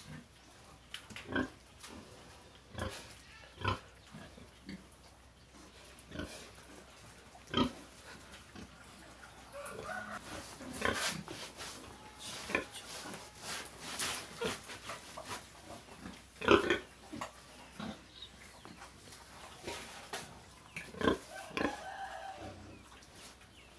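Domestic pig grunting now and then, with scattered knocks and clicks among the grunts.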